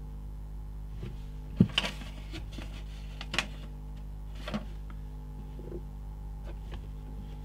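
A few sharp clicks and taps from metal tweezers and fingers handling a small circuit board, the loudest about one and a half seconds in, over a steady low electrical hum.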